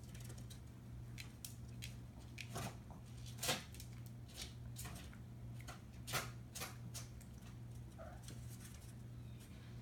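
Kitten playing in a cardboard box: a scatter of light scratches and taps from claws and paws on the cardboard, the two loudest about a third and two thirds of the way in.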